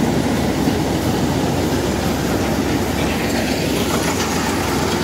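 Kubota DC-105X rice combine harvester running under load while cutting standing rice: a steady diesel engine drone overlaid with dense mechanical clatter from the header and threshing machinery.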